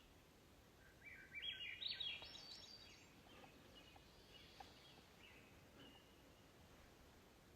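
Small songbirds calling: faint short chirps throughout, and about a second in a louder song of quick high notes that step upward in pitch for about two seconds.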